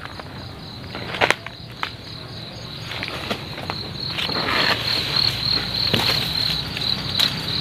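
Crickets chirping in a steady, high, pulsing trill that grows louder through the clip. Over it come a few sharp crunching steps and rustles through dry leaves and palm fronds, the loudest a little over a second in.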